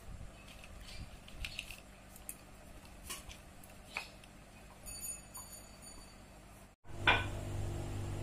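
Crisp fried nimki clicking and crackling faintly as a hand picks through them on a paper plate, in scattered light clicks. Just before the end the sound cuts out, then a steady low hum comes in, opening with one sharp click.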